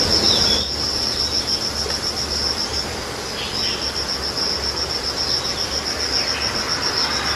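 A cricket chirping steadily in a rapid, even, high-pitched pulse train, with a short break about three seconds in.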